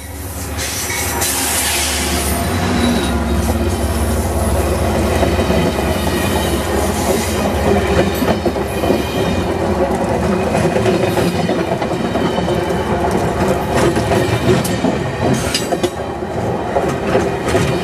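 Amtrak passenger train passing at speed close by: the GE Genesis diesel locomotive goes by as the sound swells over the first two seconds, then the stainless-steel coaches rumble past steadily, their wheels clicking over rail joints.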